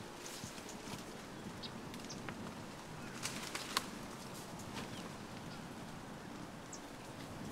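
Low outdoor rustling with a few sharp clicks a little past the middle, and a few short, high bird chirps.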